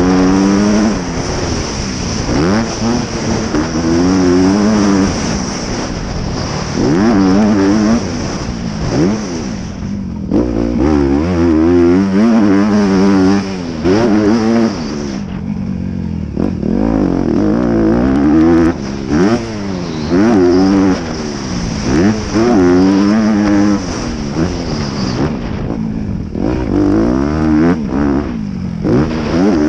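Honda CRF250R motocross bike's four-stroke single-cylinder engine revving hard through the gears, its pitch climbing and dropping back over and over as the throttle is opened and shut, with a few brief throttle-offs. Heard from the rider's helmet.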